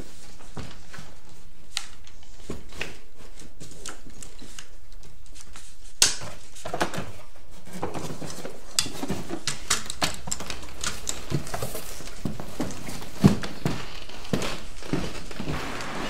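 Small clicks, taps and knocks of camera parts being handled and fitted together, scattered and irregular, with sharper knocks about six seconds in and again about thirteen seconds in.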